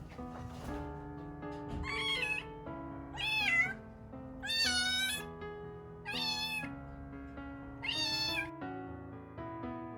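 A rescued kitten meowing five times in a row, each call loud, high and drawn out for about half a second: crying out for its mother.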